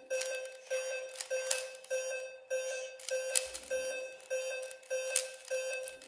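A steady train of short electronic beeps, each a click-started tone at one fixed pitch, about two a second: the pacing beat of a flash-number mental-arithmetic drill on a laptop.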